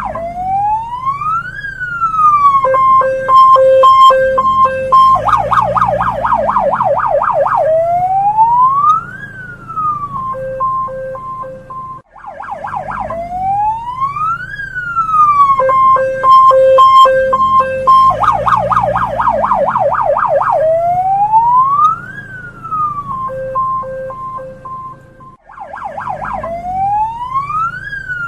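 Hong Kong police siren cycling through its patterns: a slow wail rising and falling, a steady beeping tone about three times a second, then a fast yelp, repeating about every twelve seconds with short breaks. A low steady hum runs underneath.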